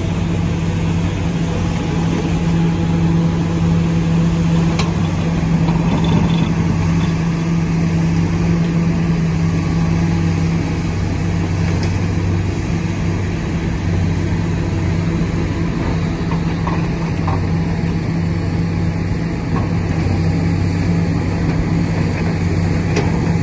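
A heavy construction machine's diesel engine running at a constant speed, a loud, steady low hum that does not rise or fall.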